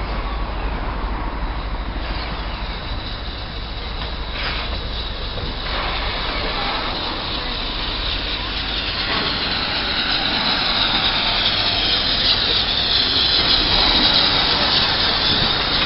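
Double Fairlie narrow-gauge steam locomotive drifting into a station, its sound growing louder as it comes alongside, with a high hissing noise building in the last few seconds.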